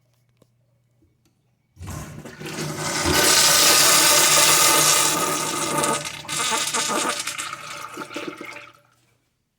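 Crane toilet flushing: a sudden rush of water about two seconds in, loudest for the next few seconds, then tapering away and stopping near the end.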